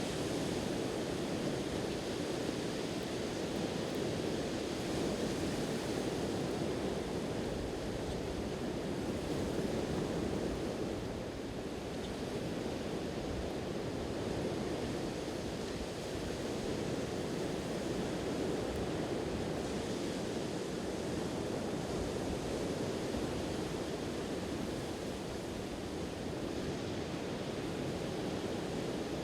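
Steady wash of ocean surf, with some wind.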